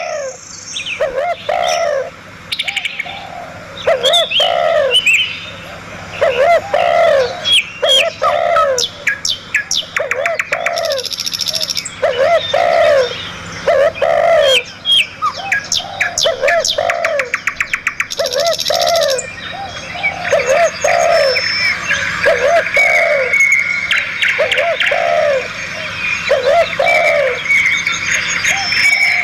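A chorus of wild birds singing and calling. A lower arched call repeats about once a second throughout, with higher chirps and rapid trills overlapping it, denser in the second half.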